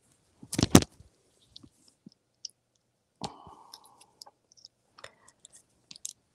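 A hot glue gun being handled and its plug pushed into a socket: two sharp clicks about half a second in, then scattered light ticks and a short rustle about three seconds in.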